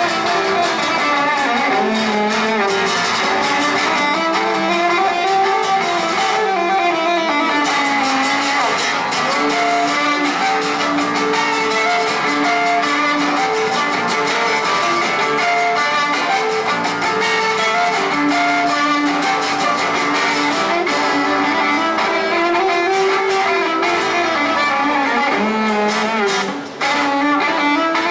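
Violin and strummed acoustic guitar playing an instrumental tune together, both amplified through a small portable amp. The violin carries the melody, often in long held notes, over steady guitar strumming. The sound briefly drops out near the end, then resumes.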